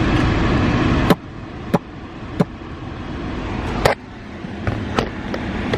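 Car air conditioning blowing hard from the vents, a steady rush of air that dips about a second in and builds back up, with several sharp clicks over it.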